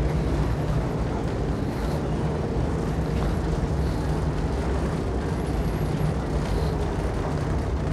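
Steady low drone of a large passenger ferry under way, heard from inside the ship: engine and ventilation hum with a few low steady tones, unchanging throughout.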